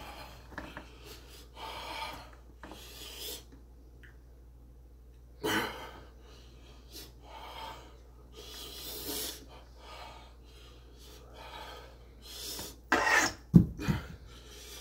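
A man breathing hard and coughing in a string of heavy breaths from the burn of an extremely spicy chocolate bar, the loudest outburst about thirteen seconds in.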